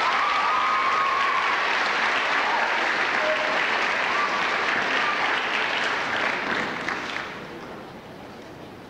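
Audience applauding, which dies away about seven seconds in.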